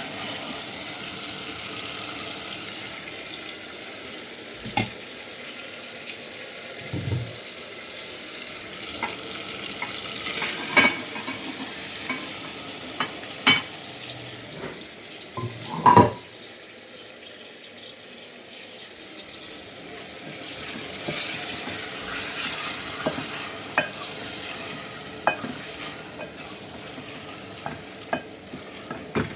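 Food sizzling as it fries in a cooking pot, a steady hiss under scattered clinks and knocks of a spoon being stirred against the pot; the sharpest knock comes about sixteen seconds in.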